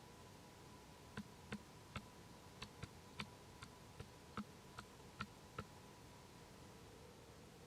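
A series of sharp, irregular clicks or taps, about a dozen over four seconds, that stop a couple of seconds before the end, over a faint steady hum.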